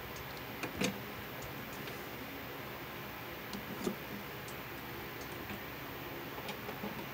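A few light clicks and knocks from hands working the Romex wires at a plastic outlet box. The loudest comes about a second in and another just before four seconds, with fainter ticks near the end, over a steady background hum.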